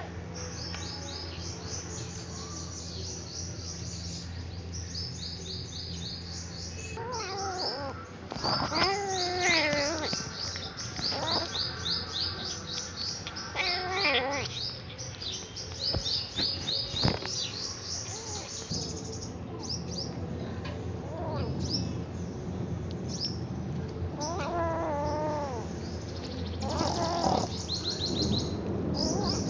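Kitten eating raw chicken and giving several cries that waver in pitch, over a steady stream of rapid high bird chirps.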